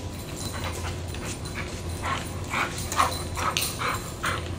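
A dog whining and yipping in short calls, about three a second in the second half, while it tugs on a rope toy.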